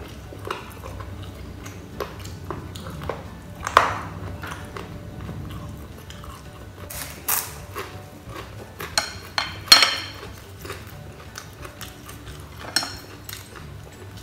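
Chopsticks and bowls clinking at a meal, with a few sharp crackling crunches of grilled rice paper being broken and eaten, the loudest about four, seven and ten seconds in.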